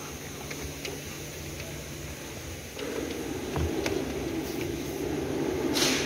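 Boot release cable being pushed through a hole and along the sill trim: a few light clicks, then a steady scraping rustle from about three seconds in, with a knock partway and a short hiss near the end.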